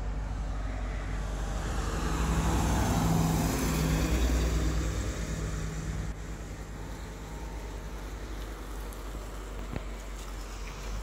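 A road vehicle passing by, its tyre and engine noise swelling to a peak about three to four seconds in and then fading into a steady low background. A single sharp click comes near the end.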